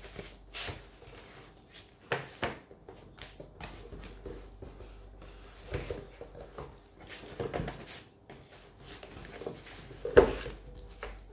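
Hands working an item into a tight plastic sleeve: scattered rustles and clicks of plastic being handled, the loudest knock about ten seconds in.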